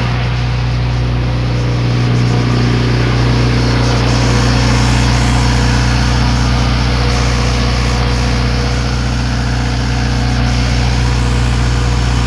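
Motorstar 50 kVA diesel generator set running at a steady speed, a constant engine hum.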